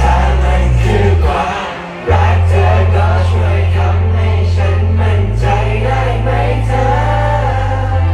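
Male pop vocals sung into handheld microphones over an amplified backing track with a heavy bass line. The backing thins out about a second in and comes back in sharply at about two seconds.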